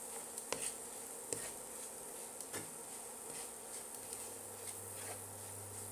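Wooden spatula stirring and scraping crumbly mawa and coconut around a nonstick frying pan, with a few light taps of the spatula against the pan, over a faint steady buzzing hiss.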